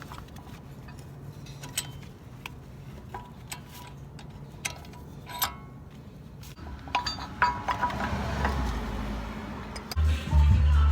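Scattered light metallic clinks and taps of brake pads and caliper parts being handled at a Brembo front brake caliper, with louder handling noise from about seven seconds in. Music comes in near the end.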